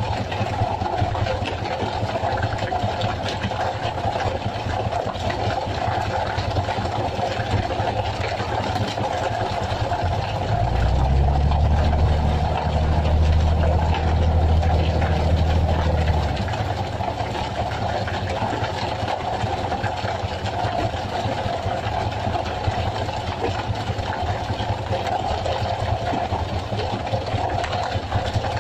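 Fishing boat's engine running steadily. About ten seconds in, a deeper, louder drone comes in and drops away some six seconds later.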